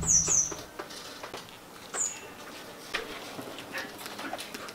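A small bird chirping: two quick high chirps falling in pitch at the start and one more about two seconds in. Under them a low buzz dies away within the first second, with faint scattered clicks and knocks.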